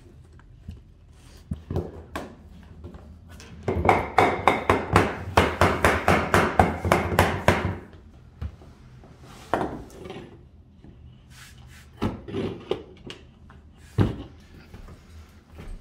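Vinyl plank flooring being tapped into place to lock the joints: a quick run of knocks, about five a second for some four seconds, then a few single knocks.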